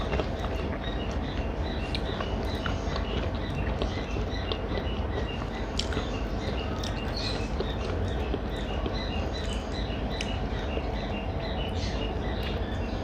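Quiet eating sounds, scattered small clicks of chewing and handling food, over steady room noise, with a faint high chirp repeating evenly about three times a second throughout.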